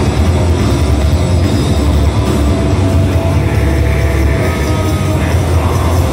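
Black metal band playing live through the stage PA: a loud, unbroken wall of distorted guitars and drums with a heavy low end.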